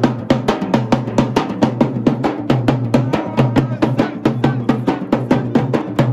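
Double-headed barrel drum (dhol) beaten by hand and stick in a fast, even rhythm of about five strokes a second, with a steady low tone beneath the beat.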